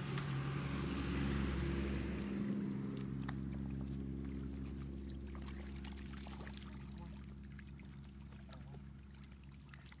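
An engine running at a steady pitch, loudest in the first few seconds and then slowly fading, with faint wet clicks and slaps of fish flapping in the mud.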